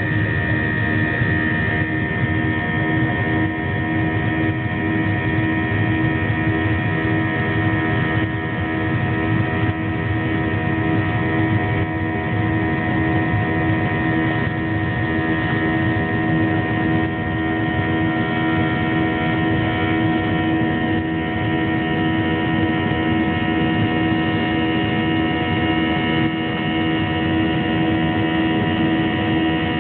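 Aircraft cabin noise in flight: a steady engine drone over a low rushing rumble, with several steady humming tones held throughout.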